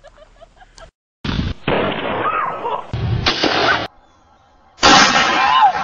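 Three loud shotgun blasts about a second and a half apart, each with a noisy tail that cuts off suddenly.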